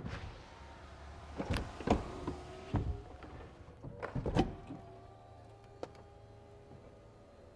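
BMW 4 Series Convertible's folding hardtop starting to open. A series of mechanical clicks and thunks, the strongest about four seconds in, as the roof mechanism unlatches. Then a steady electric motor whine as the roof panels lift.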